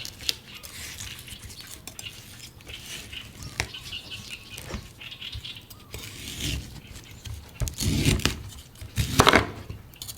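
Knife cutting into a coconut: light scraping strokes and sharp clicks, then two heavier chops in the last few seconds, the second the loudest.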